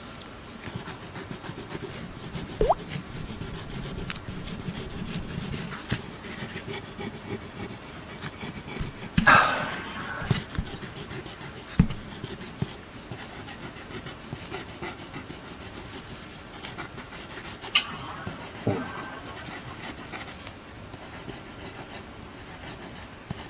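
Pencil scratching and rubbing on paper as a drawing is sketched, with a few sharp clicks and one louder rustle about nine seconds in.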